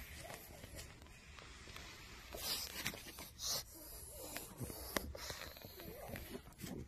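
Pug breathing noisily through its flat nose as it sniffs under a shelf for a dropped treat, with two short hissing sniffs about two and a half and three and a half seconds in and light scuffing clicks.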